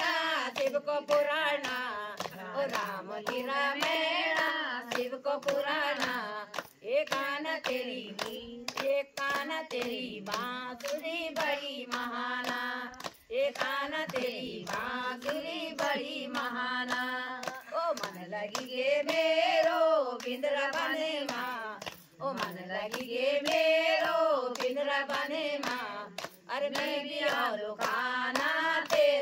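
A group of women singing a Hindu devotional kirtan bhajan together, with steady hand-clapping in time keeping the beat.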